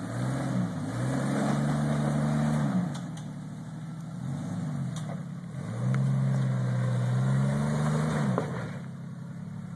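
Jeep Cherokee XJ's engine revving under load as it crawls over rock ledges: two long pushes, each rising, holding for a couple of seconds and falling back, with a short blip between and another rise near the end.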